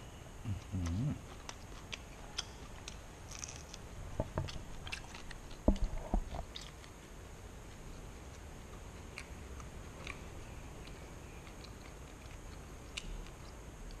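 A man biting and chewing a cooked banana prawn, shell and tail included, with sharp crunches and clicks that come thickest in the first half and loudest a little before the middle. A short low hum comes near the start.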